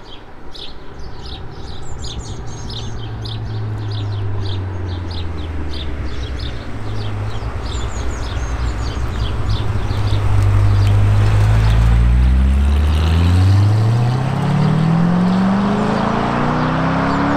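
Supercar engine running at a steady low note that grows louder, then the revs climb steadily for about five seconds as the car accelerates away. Birds chirp over the first half.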